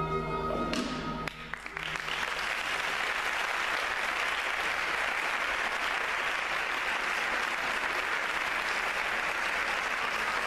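Backing music ends about a second in, and an audience breaks into steady applause.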